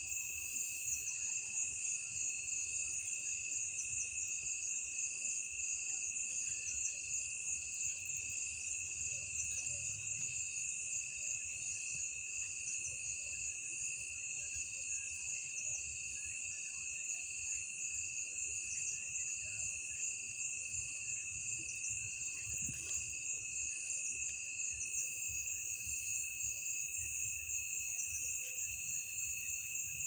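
Night chorus of crickets and other insects: several steady high trills at different pitches, one of them pulsing in a quick, even rhythm.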